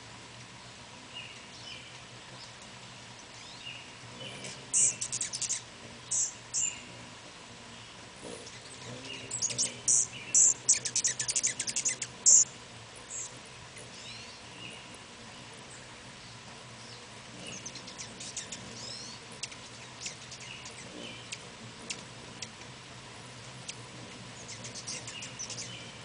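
Rufous hummingbirds giving sharp, high-pitched chip calls in scattered bursts, with a fast chattering run of chips about nine to twelve seconds in.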